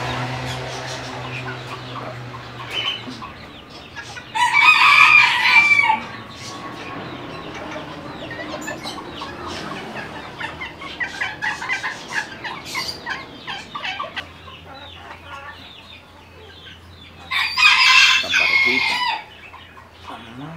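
A rooster crows twice, about four seconds in and again near the end, each crow lasting under two seconds, with hens clucking in between.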